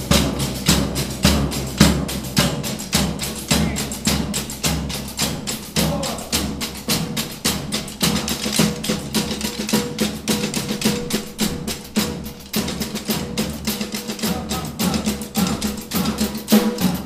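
Drum ensemble of snare drums, bass drum and ride cymbal played together with sticks: a dense, rapid run of strokes through an eight-bar passage, cutting off suddenly at the end.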